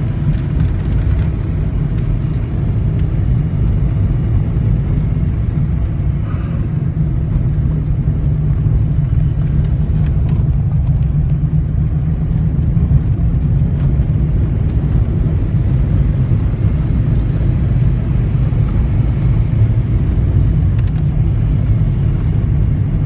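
Steady low rumble of a car driving along an unpaved dirt road, heard from inside the cabin: engine and tyre noise, with faint scattered ticks over it.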